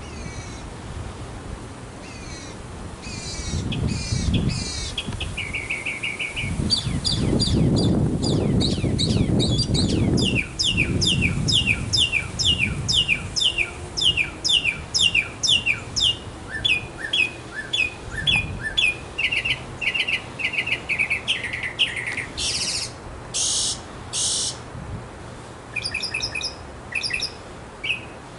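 Northern mockingbird singing: strings of sharp repeated notes, each phrase repeated several times before it switches to a different one, including a long run of about two notes a second and a few long buzzy notes near the end. A low rumble sounds under the song a few seconds in.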